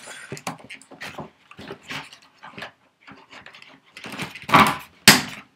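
Cardboard packaging being pulled and worked by hand: scattered small crinkles and scrapes, then a louder rasping tear about four and a half seconds in and a sharp crack just after.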